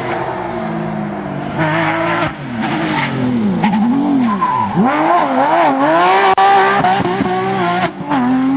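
Porsche 911 GT3 rally car's flat-six engine running hard under load. Its revs swing rapidly up and down several times in the middle, then drop sharply at a shift about eight seconds in and begin climbing steadily again.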